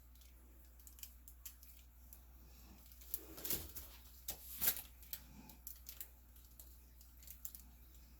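Faint handling noises from paint cups, bottles and tools: scattered small clicks and taps, with two brief louder rustling scrapes about three and a half and four and a half seconds in.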